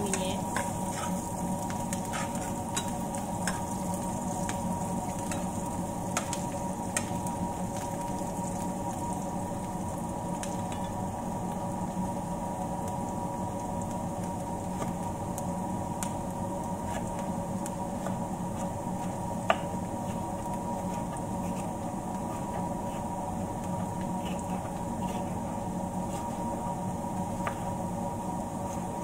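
Sliced onions frying in oil in a nonstick pan, sizzling with scattered small pops over a steady low hum; a spoon stirs them briefly at the start, and one sharper pop stands out about two thirds of the way through.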